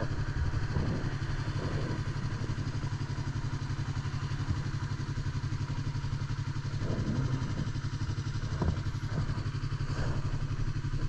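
Motorcycle engine running steadily at cruise, with wind rushing over the helmet-mounted camera's microphone.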